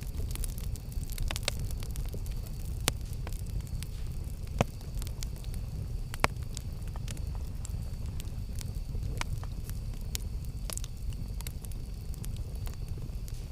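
Campfire burning with a steady low rumble and scattered crackles and pops, the two sharpest pops near the middle.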